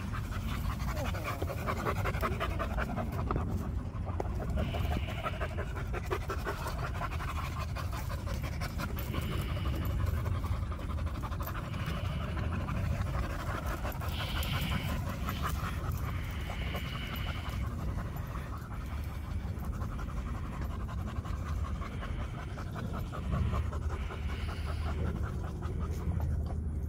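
Dogs panting hard and fast, close by, a quick steady rhythm of breaths after running and play.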